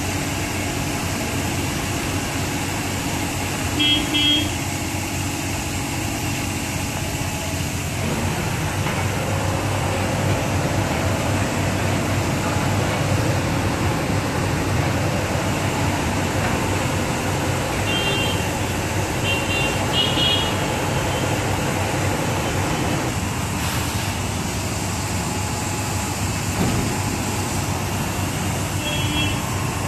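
Automatic two-wheeler wash booth running through its foam wash cycle, a steady noise of spray and machinery that changes character twice. A few short high toots cut through it, once early on, three times close together in the middle and once near the end.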